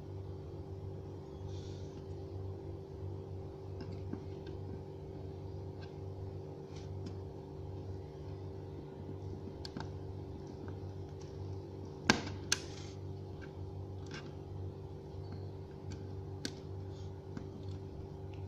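Scattered light clicks and taps of laptop parts being handled, with two sharper, louder clicks about two-thirds of the way through, over a steady low hum.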